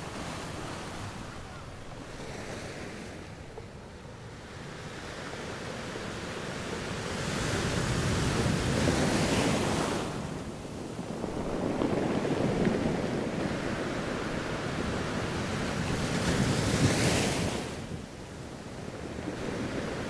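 Small sea waves breaking and washing up a sandy beach. The surf swells and falls back in three surges, the loudest near the end.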